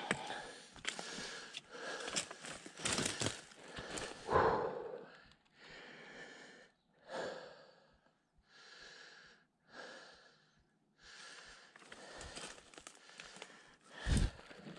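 A hiker breathing hard after climbing a steep slope, with a breath about every second. In the first few seconds his footsteps crunch through dry leaves and pine needles, and near the end there is a short low thump.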